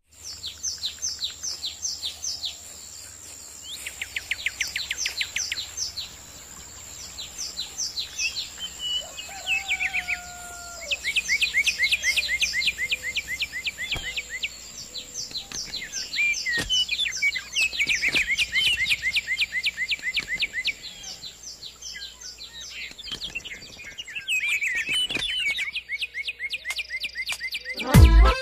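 Songbirds singing: phrases of a few seconds made of rapid, repeated, falling high notes, one phrase after another with short gaps between.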